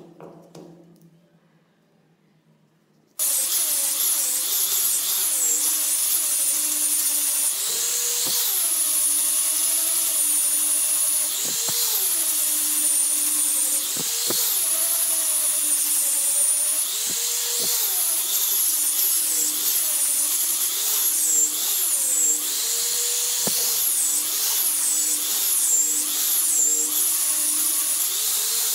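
Angle grinder with a sanding disc running against a hardwood block, shaping a curved handrail piece. It comes in abruptly about three seconds in. Its high whine repeatedly sags in pitch and recovers as the disc is pressed into the wood and eased off.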